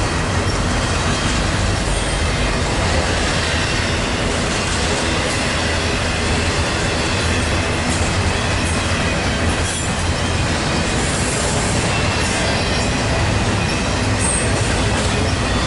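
A freight train's cars rolling steadily past, wheels running on the rails, with a couple of brief high-pitched wheel squeals.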